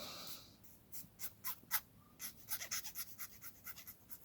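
Faint, irregular scratching and light clicks of a small hand tool shaving and coning the end of a small plastic model part.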